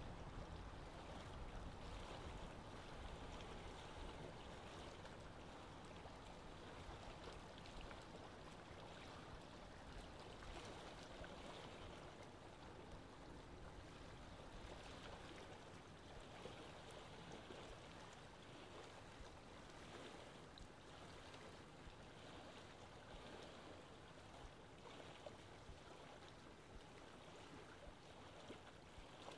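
Near silence: a faint, steady hiss of background noise, slowly fading.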